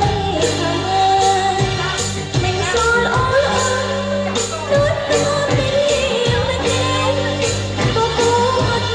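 Band and singer playing a Khmer pop dance song, with a steady beat of about two strikes a second under a sung melody and held bass notes.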